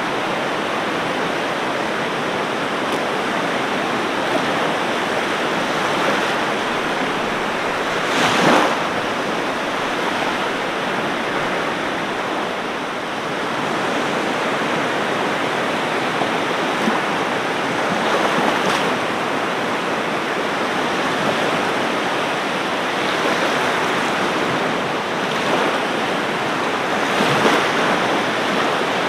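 Ocean surf: a steady wash of waves on a beach. Louder breaking waves swell up about a third of the way in, again near two-thirds, and once more near the end.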